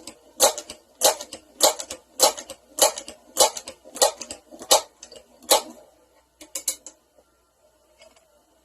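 Crosman 1322 multi-pump air pistol being pumped: a steady run of sharp clicking strokes about every 0.6 s that stops a little before six seconds in, followed by a couple of quick mechanical clicks.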